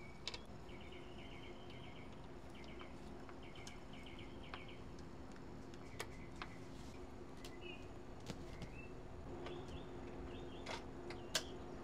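Faint outdoor ambience of small birds chirping in repeated short trills, over a steady faint hum. A few light clicks and taps come from a tripod quick-release plate and a tripod being handled, the loudest near the end.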